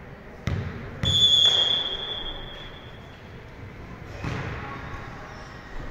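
Ball thuds with a hall echo as a volleyball is played, and a referee's whistle blown once, a long steady blast starting about a second in. Another ball thud comes near the end.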